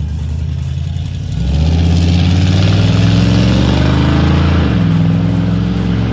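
A car engine running, throttled up about a second and a half in so it gets louder and rises in pitch, then easing off just before five seconds and running on steadily.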